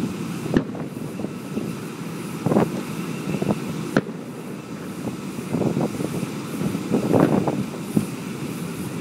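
Aerial fireworks bursting: sharp bangs about half a second in and about four seconds in, with runs of smaller pops between them over a continuous low rumble.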